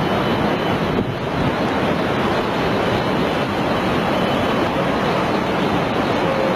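Tsunami floodwater surging over land and carrying debris: a loud, steady rush of moving water, with some wind on the microphone.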